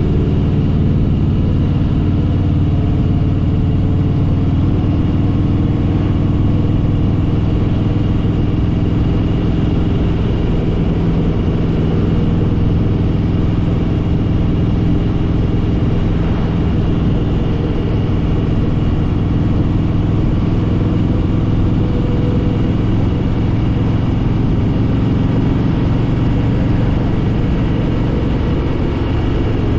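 Harley-Davidson Fat Boy Lo's V-twin engine running steadily, its pitch holding even with no revving.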